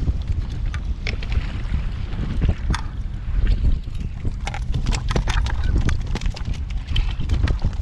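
Wind buffeting the microphone with a steady low rumble, over scattered sharp clicks and knocks from handling a halibut on a stringer line aboard a kayak; the knocks come thickest a little past the middle.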